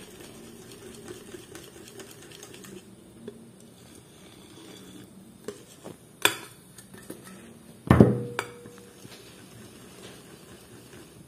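Wire whisk scraping and stirring flour into batter in a glass dish. A metal bowl knocks against the dish twice, about six and eight seconds in; the second knock is the loudest and rings briefly.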